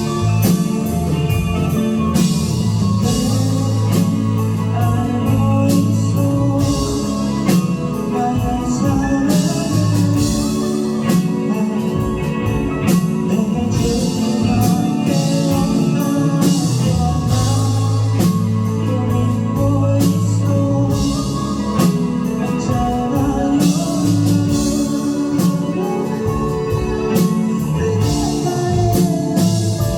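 Live rock band playing: electric guitars, bass guitar and drum kit, with drum strikes running through sustained guitar notes.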